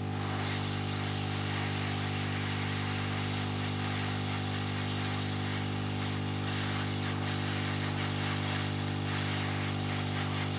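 Hot air rework station running: a steady motor hum under a rush of air from the nozzle, which grows louder just after the start as the hot air is played over the board to reflow the solder paste.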